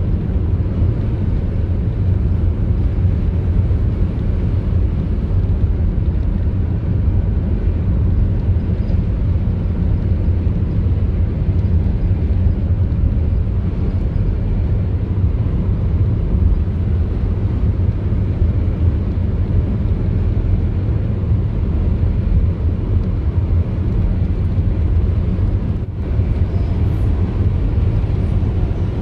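A car driving along the road: a steady low rumble of tyres and engine.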